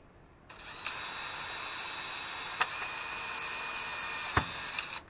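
Cordless drill with a brushless motor running at a steady high speed for about four and a half seconds, drilling a hole, with a few clicks along the way and a sharp knock shortly before it stops.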